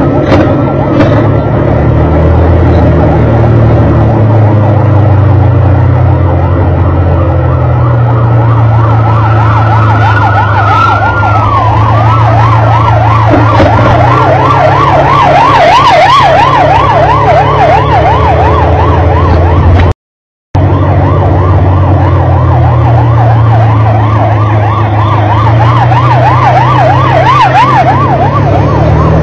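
Fire engine siren on the move: a slow wail that drops off about eleven seconds in, then a fast yelp warbling about three times a second, over a steady engine rumble. The sound cuts out for a moment about two-thirds of the way through.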